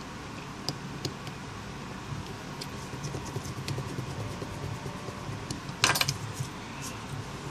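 Faint clicks and scrapes of a small precision screwdriver driving tiny screws into a BlackBerry Z10's frame and hands handling the phone, with a louder brief clatter of clicks about six seconds in. A steady low hum runs underneath.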